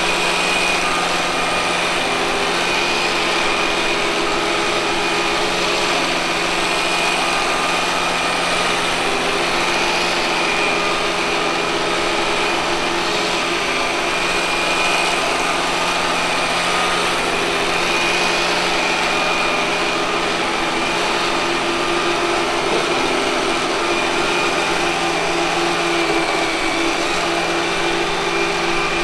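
Robot vacuum cleaner running, a steady whine from its suction fan and brush motors at an even level.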